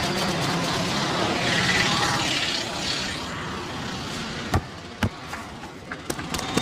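A barber's hands striking during a head massage: two sharp smacks about half a second apart, then a quick run of lighter taps, over steady street traffic noise.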